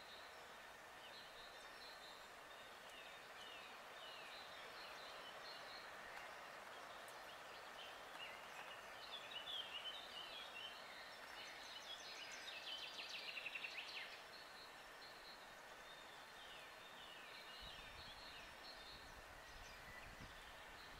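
Faint chorus of small songbirds, many short overlapping phrases that often fall in pitch. A louder, rapid trill comes a little past the middle, and a low rumble joins near the end.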